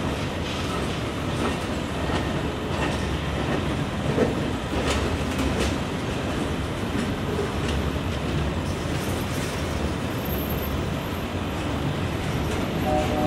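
Freight cars rolling past on the adjacent track: a steady rumble of steel wheels on rail, broken by scattered clacks as the wheels cross rail joints.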